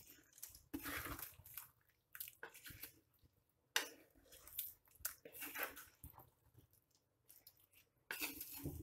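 Wooden spoon stirring chicken pieces in thick coconut masala in a pot: wet stirring in irregular strokes, with one sharp knock about four seconds in.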